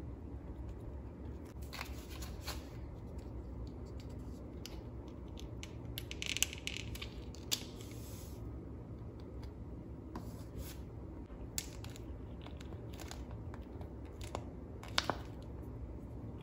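Thin clear plastic candy mold tray being flexed and handled as set jelly candy pieces are pried out with small plastic tweezers: scattered sharp clicks and a brief crinkle of plastic about six seconds in. A steady low hum runs underneath.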